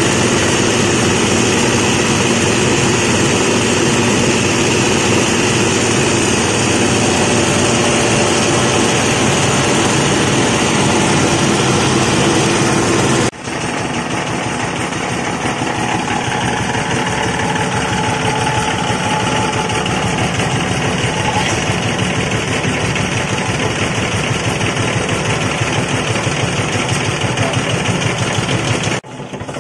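Rice husk and bran pulverizing mill running steadily under load, grinding bran into fine bekatul powder. The noise changes abruptly about halfway through and drops away near the end.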